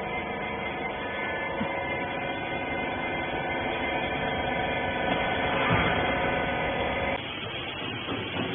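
Hydraulic rag baler's electric motor and pump running with a steady hum, cutting off suddenly about seven seconds in.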